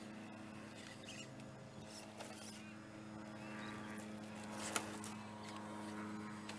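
Radio-controlled Traxxas TRX-4 crawler's electric motor and gear train running with a low steady whine as it creeps down a dirt rut, tyres crackling over gravel and small stones. A single sharp knock comes about three-quarters of the way through.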